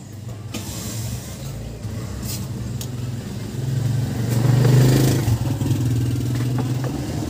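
A motor vehicle's engine running with a steady low hum that swells to its loudest about four to five seconds in, then eases. A few light clicks come from the metal hood release lever assembly being handled.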